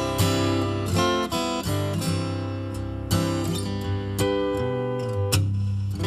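Acoustic guitar background music, a run of plucked notes ringing on.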